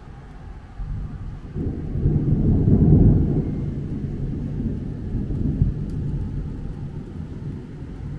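Rolling thunder: a low rumble that builds about a second and a half in, is loudest around three seconds, then slowly rolls away.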